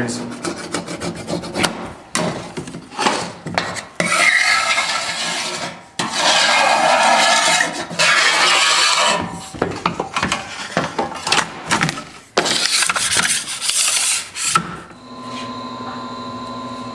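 Hands scraping, rubbing and clicking against plastic and metal ski-building parts in uneven strokes, with three longer scraping runs. A steady machine hum begins near the end.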